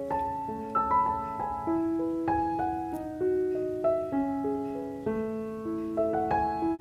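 Background piano music: a light melody of struck notes over chords at an easy pace, with a brief break just before the end.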